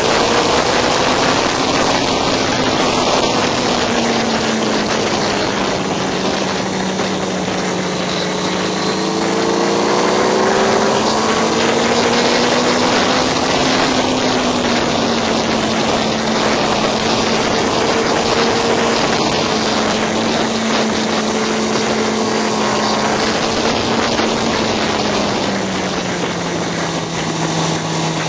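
Motorcycle engine running hard at racing speed, its pitch rising and falling with the throttle and dropping lower near the end, under a heavy rush of wind on the microphone.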